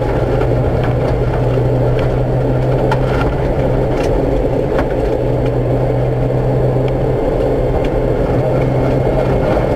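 Car engine running at steady revs, heard from inside the cabin while driving on a dirt road, with a constant low drone and tyre noise. There are a few sharp ticks over it, and the engine note dips briefly about seven seconds in.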